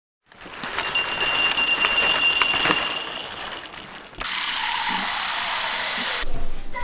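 Dry puppy kibble pouring from a bag into a ceramic bowl: a dense rattle of pellets with a clear ringing from the bowl, tapering off. About four seconds in it cuts to tap water running into a ceramic bowl at a steel sink for about two seconds.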